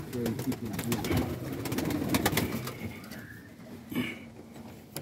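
Many homing pigeons cooing together in a loft, overlapping low coos throughout, with a few sharp clicks among them.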